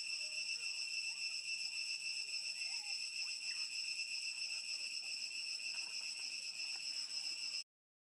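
Insect chorus in tropical forest: a steady, high-pitched trill in several layers, pulsing rapidly, that cuts off suddenly near the end.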